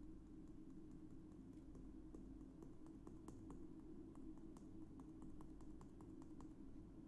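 Faint, irregular light clicks, several a second, stopping near the end: fingers tapping a small plastic tube to shake agar powder out onto weighing paper on a scale.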